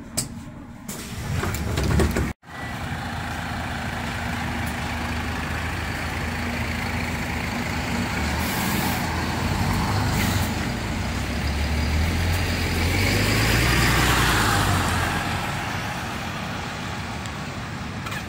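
MAN A22 diesel single-deck bus engine running as the bus draws past and pulls away, its engine note building to a peak about two-thirds through and then easing off. Short air hisses, typical of air-brake release, come about halfway through.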